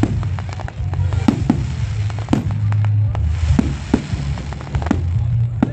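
Fireworks display: a rapid, irregular series of sharp bangs from bursting shells, over a steady low bass band of background music.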